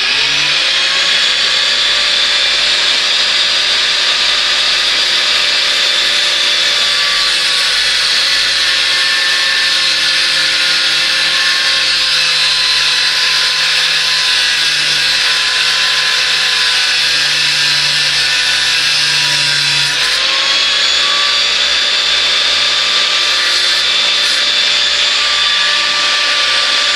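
Electric grinding wheel running and grinding the tip of an 18 mm steel twist drill bit held in a sharpening jig: a steady loud whine over a rasping hiss. Its pitch sinks slowly and picks back up about twenty seconds in.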